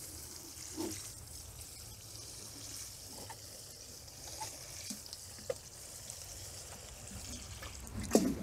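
Water sprinkling from a plastic watering can's rose onto shredded paper and food scraps in a compost bucket: a steady high hiss. There are a few faint knocks, and a louder thump near the end as the pouring stops.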